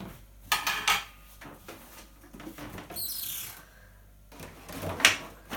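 Kitchen clatter of ingredients being put away: a few knocks of containers, a short falling swish in the middle, and a sharp knock near the end.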